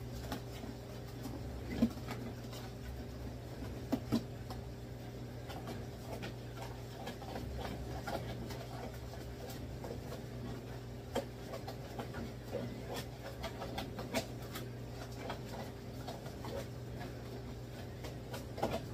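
A spoon stirring a thick mozzarella, egg and cream mixture in a plastic container, making irregular clicks and scrapes against the plastic, over a steady low hum.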